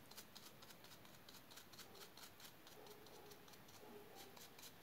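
Faint, irregular scratching of a stiff drybrushing brush's bristles flicking over a textured resin diorama base, several short strokes a second.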